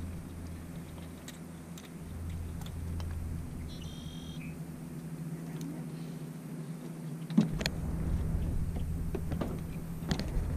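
A bowfishing compound bow is shot: one sharp snap about seven seconds in as the arrow is released, over a steady low hum and rumble that grows louder after the shot.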